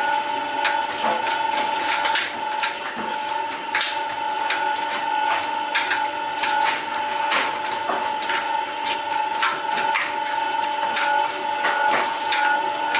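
A machine running with a steady high whine, with frequent irregular knocks and clatter from bakery work throughout.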